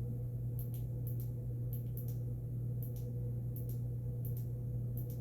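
Steady low hum with faint, irregular small ticks scattered through it, about a dozen in all.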